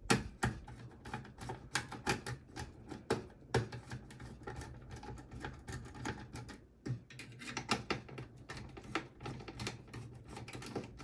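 Quick, irregular small clicks and rattles, several a second, from a screwdriver backing out the screws that hold a hard drive in a desktop PC case and from the loosened drive and metal parts being handled.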